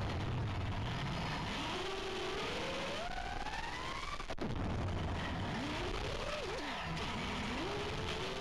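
FPV freestyle quadcopter's brushless motors whining, their pitch rising and falling as the throttle changes through the manoeuvres.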